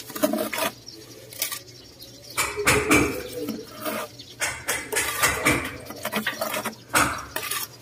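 Trowel scraping and clinking as tile adhesive is scooped and spread for a decorative cladding stone: a string of short scrapes and knocks.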